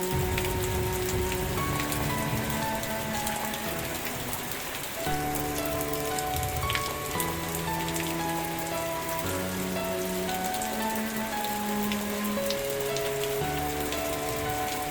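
Steady rain falling, with scattered sharp drops. Soft background music with long held notes changing every second or two runs underneath.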